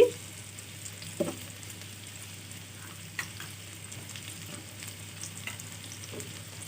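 Chopped onion and green chillies sizzling steadily in hot oil in a pan, with a few light knocks of stirring.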